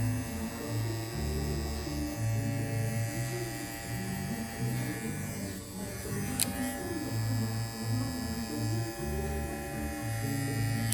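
Babyliss Pro cordless hair clipper running with a steady electric buzz, over background music with a bass line. A single sharp click about six seconds in.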